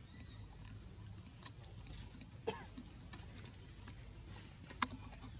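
Faint outdoor ambience with a steady low hum and scattered small clicks. About two and a half seconds in there is a short squeak, and near the end a single sharp click.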